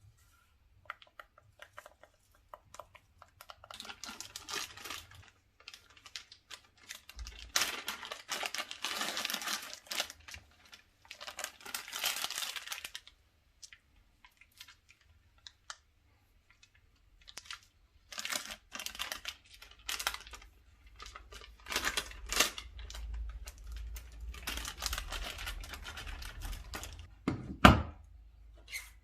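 Packaging being torn and crinkled by hand while the kit is unpacked, in repeated bursts with scattered clicks and handling knocks, and one loud thump near the end.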